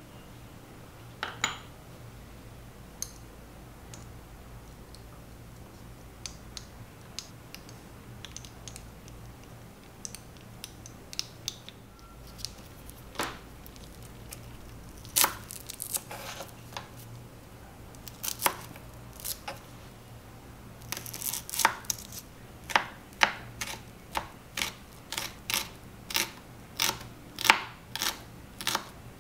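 Tiny kitchen knife slicing a small red onion on a miniature wooden cutting board: scattered light clicks and knocks of small ingredients being handled, then, about two thirds of the way in, a steady run of sharp knife taps on the board, about two a second.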